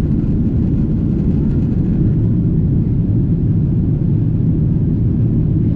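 Steady, loud low rumble of a moving vehicle, with no distinct events.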